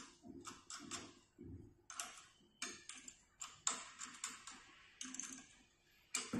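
Faint, irregular light clicks and taps of small metal hardware as a bolt is fitted and tightened by hand on an elliptical trainer's frame.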